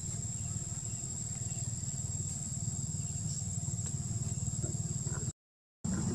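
A steady high-pitched insect drone over a low steady rumble. Both cut out completely for about half a second near the end.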